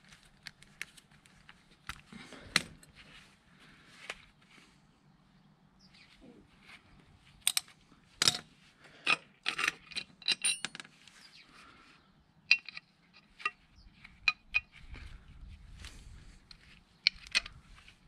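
Irregular metallic clinks and clanks of hand tools and loose metal parts being handled: hex keys, wrenches and bolts knocking together as a motorcycle footrest bracket is unbolted. The clinks come in quick clusters, busiest in the middle of the stretch and again near the end.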